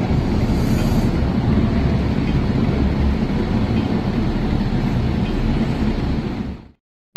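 Snow avalanche thundering past: a loud, steady, deep rumble that cuts off suddenly near the end.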